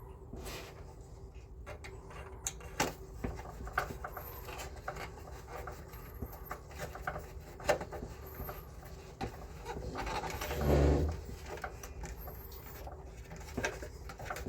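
Scattered light clicks and knocks of parts and tools being handled, with one louder low rumble lasting about a second, about ten seconds in.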